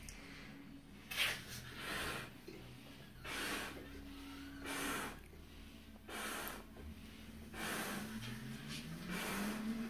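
A person taking sharp breaths and blowing hard into a large balloon, a breath or puff about every second and a half. A faint low tone rises in pitch near the end.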